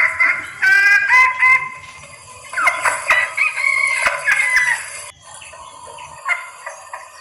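Junglefowl hen calling: a run of short pitched calls, some overlapping one another. This is the call of a hen in breeding condition, used to lure males.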